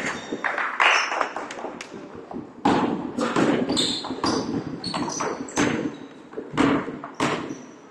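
Basketball bouncing and thudding on a wooden gym court, with short high squeaks of sneakers on the floor, echoing in the hall during play.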